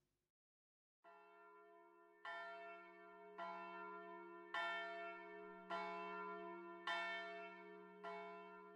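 A single church bell tolling quietly, struck over and over a little over a second apart, its low hum ringing on between strokes.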